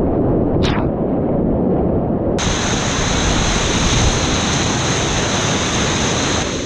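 Whitewater rapids rushing and splashing around a kayak, heard up close with wind buffeting the microphone. The sound is muffled for about the first two seconds, then opens up full and bright.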